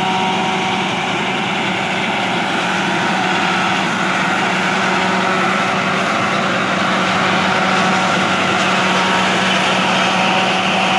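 Tractor engine running steadily under load while driving a tractor-mounted forage harvester, whose belt-driven cutter and blower run continuously as it cuts and chops a standing crop. A steady, even drone with a few held tones in it.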